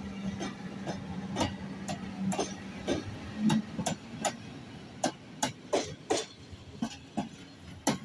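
Electric locomotive hauling double-deck passenger coaches past at speed. A steady hum from the locomotive stops about halfway through, and a run of sharp clacks, often in pairs, comes from the wheels crossing the rail joints.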